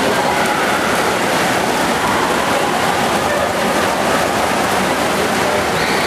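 Steady, echoing din of an indoor swimming pool during a race: swimmers splashing and kicking, mixed with the voices of spectators along the deck.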